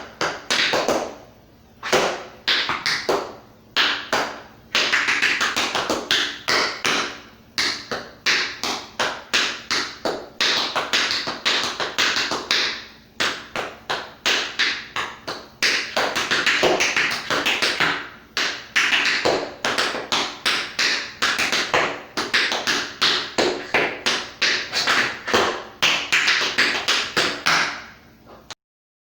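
Tap shoes striking a hard floor in quick rhythmic runs of taps, with brief pauses between phrases, stopping suddenly near the end.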